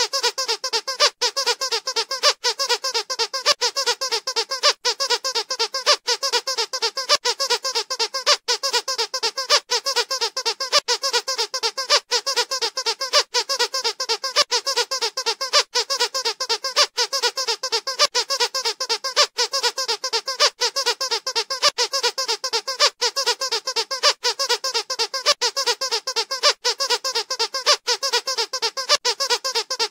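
Squeaker in a rubber squeaky dog toy, squeezed over and over in quick succession: short, high-pitched squeaks, several a second, without a break.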